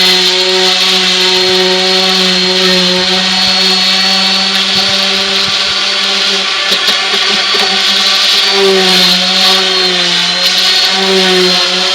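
Electric orbital sander running steadily while sanding a wood surface, its motor hum mixed with the grit scrubbing the wood; the pitch dips slightly a few times in the second half as it is pressed harder.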